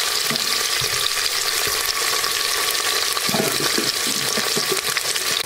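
Sliced onions frying in hot oil in an aluminium pressure cooker: a steady sizzle full of fine crackles.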